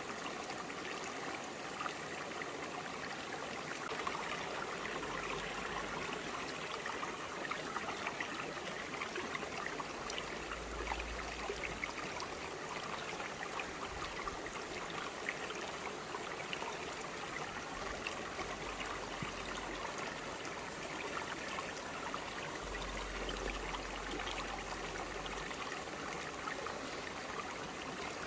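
A shallow forest stream flowing and splashing steadily over broad rocks, a continuous rushing burble.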